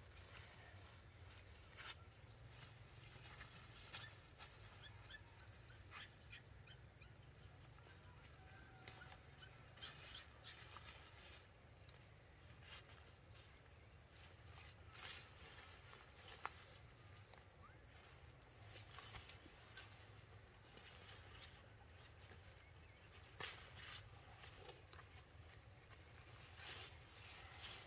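Faint, steady insect chirring at two high pitches, with scattered light clicks and snaps.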